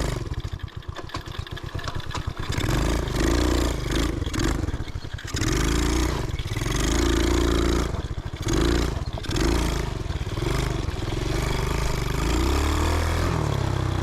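125cc engine of a homemade three-wheeled ATV running under load on a rough trail. It chugs at low revs for the first couple of seconds, then is revved in repeated bursts that rise and fall, settling to a steadier pull near the end.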